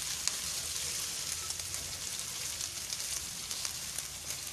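Sliced onions with garlic-ginger paste frying in oil in a wok: a steady sizzling hiss with a few small crackling pops.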